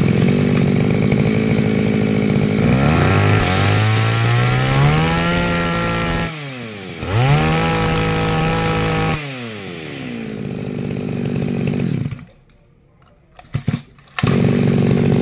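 Mitsubishi KC2000 20cc two-stroke engine on a Kubota brush cutter idling, then revved up twice with the throttle and dropped back to idle. It falls quiet for about two seconds near the end, then idles again.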